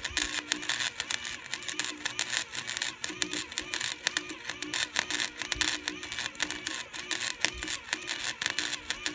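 Electric arc welding on a lawn roller: a continuous, irregular sputtering crackle, with a low hum that cuts in and out as the weld runs stop and start.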